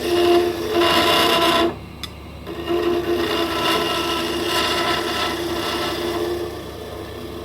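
Plum-wood pen blank spinning on a wood lathe, with a tool or abrasive scraping against it over the steady hum of the lathe. The scraping stops for about a second near two seconds in, then resumes and fades out shortly before the end.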